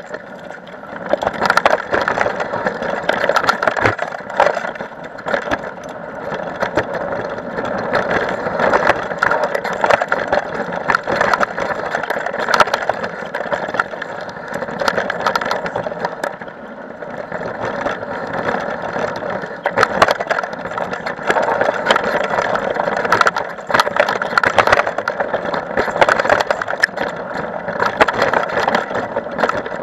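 Mountain bike rolling fast down a dirt and gravel trail: steady tyre and rattle noise with frequent sharp knocks as the bike hits bumps and stones.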